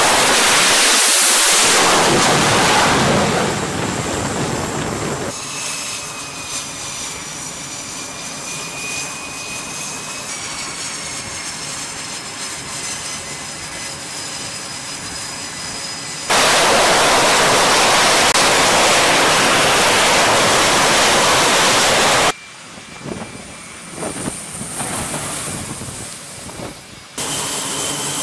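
F/A-18 Super Hornet twin jet engines: a high whine of idling turbofans with several steady high-pitched tones. Twice it is replaced by several seconds of much louder, hissing jet noise at high power, once for the first three seconds and again for about six seconds past the middle. The changes are abrupt.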